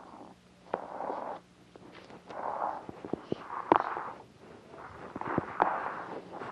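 Scattered sharp clicks and knocks with soft rustling swells: a person moving about at a chalkboard. A faint steady low hum runs underneath.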